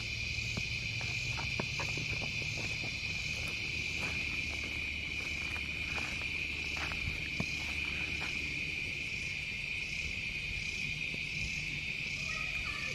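A chorus of crickets and other insects: a steady high-pitched trill, with a second insect call pulsing evenly about once or twice a second above it. Faint scattered clicks sit beneath.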